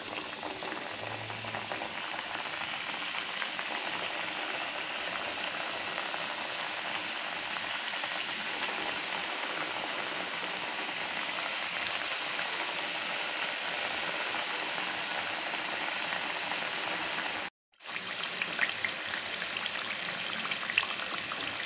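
Murukku dough spirals deep-frying in hot oil: a steady sizzle with dense bubbling. It cuts out briefly near the end, then comes back with sharper, more scattered crackles.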